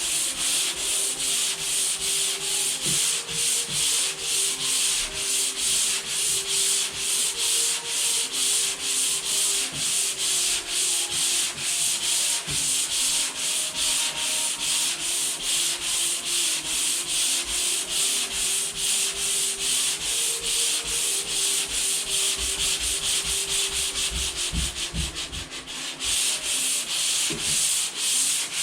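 Sandpaper scraping back and forth over dried drywall joint compound by hand, in quick even strokes about three a second, with a brief pause near the end.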